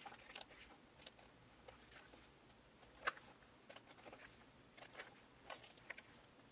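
Faint paper rustles and soft ticks of photobook pages being flipped through quickly, with one sharper tick about three seconds in.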